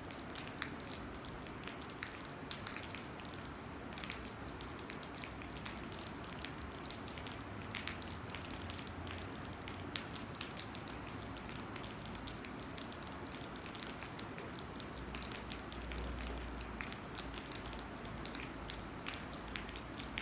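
Steady rain falling, a continuous hiss with many individual drops ticking sharply on a surface. A soft low rumble swells briefly about three-quarters of the way through.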